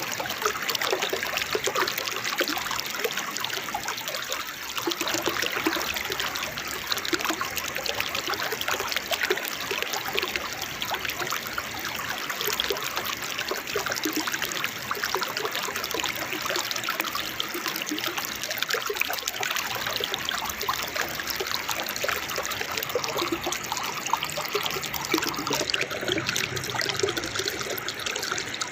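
Waterfall water splashing and babbling steadily, a continuous trickling rush.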